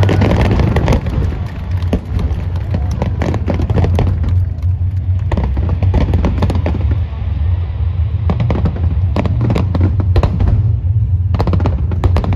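Aerial fireworks shells bursting in quick clusters of sharp cracks and crackling, densest at the start and again from about eight seconds on, over a steady low rumble.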